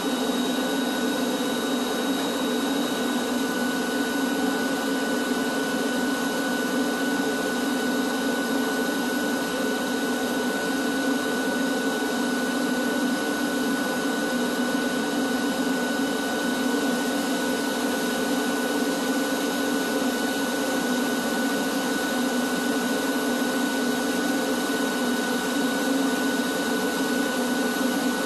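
Industrial drum vacuum running steadily under suction: a constant rushing hum with a thin, steady whine above it, unchanged throughout.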